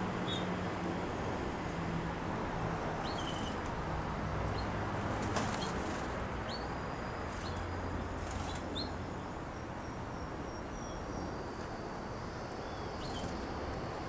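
Caged canaries: several brief wing flutters and a few short, faint chirps over steady background noise.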